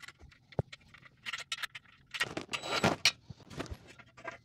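Steel bed-frame rails and small hardware being handled: a scattered run of metal clinks, knocks and rattles, with no motor running.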